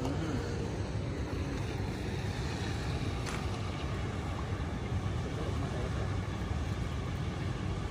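Steady low rumble of outdoor background noise, with one faint click about three seconds in.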